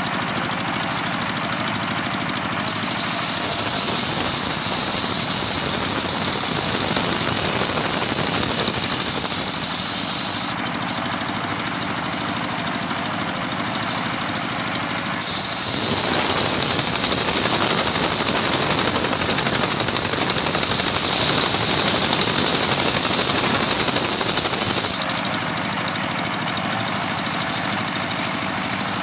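Homemade sawmill's engine running steadily while its saw makes two long cuts through a coconut trunk. Each cut lasts about eight to ten seconds and adds a loud high hiss over the engine. Between the cuts the engine runs on without cutting.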